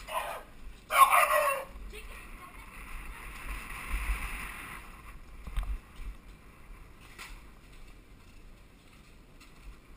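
Downhill mountain bike rolling fast over cobbled and paved streets, heard from a helmet camera: a low rumble of wind and road noise with a few light knocks. A short, loud call with a falling pitch comes about a second in.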